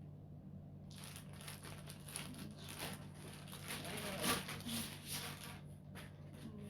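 Rustling and crinkling of packaging as a vacuum accessory is handled and unwrapped, starting about a second in and loudest a little past the middle, over a faint steady hum.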